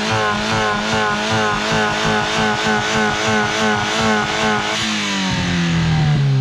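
Engine held at high revs, its pitch wavering up and down in a steady rhythm, then the revs fall away steadily about five seconds in.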